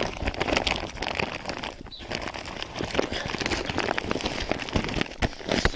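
Plastic sack packed with crop residue being handled and tied shut: an irregular crackly rustling and crinkling of the sack material.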